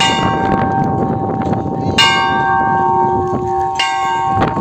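Hanging brass temple bell struck three times, about two seconds apart, each stroke ringing on in several steady tones that slowly fade.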